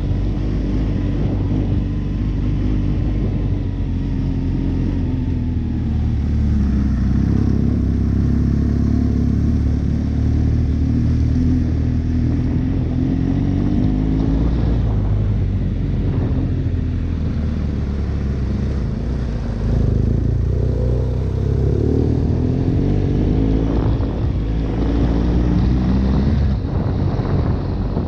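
A motor engine running steadily, its note wavering up and down a little as its speed changes.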